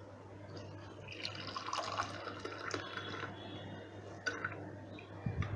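Ginger masala tea being poured into a cup, a thin stream of liquid trickling and filling from about a second in, with a few light clicks.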